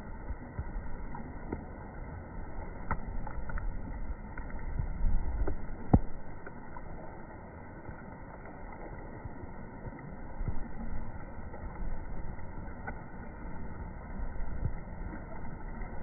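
Steady rush of flowing river water with a low rumble that swells about five seconds in, and a single sharp click at about six seconds.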